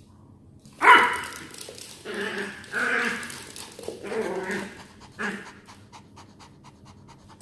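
Small dogs panting during play, with a sharp high yelp about a second in and several shorter breathy bursts after it. Near the end comes a run of quick light clicks.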